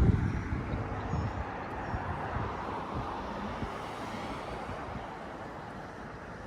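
Steady rushing of an InMotion E20 electric unicycle ride: wind over the microphone and the tyre rolling on pavement, slowly fading. A heavy gust of wind buffets the microphone right at the start.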